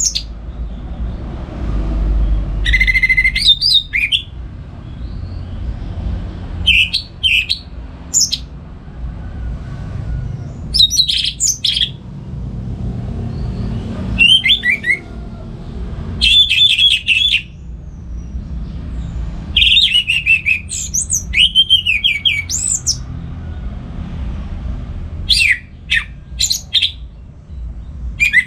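Orange-headed thrush singing loud, varied whistled phrases in short bursts every second or two, over a steady low hum.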